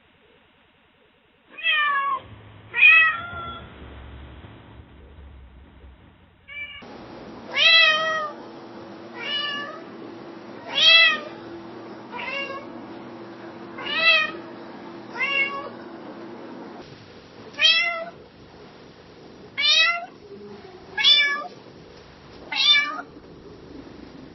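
Domestic cats meowing in three separate recordings: two meows a couple of seconds in, then a long run of short meows repeated about every second or second and a half. A steady low hum sits under the middle run of meows.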